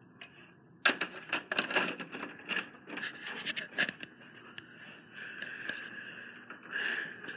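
Handling noise: a dense run of scratching, rubbing and clicking for about three seconds, then a fainter steady high tone with light rubbing.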